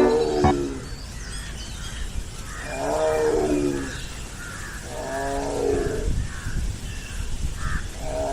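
A big cat calling three times, each call a drawn-out sound about a second long, a couple of seconds apart.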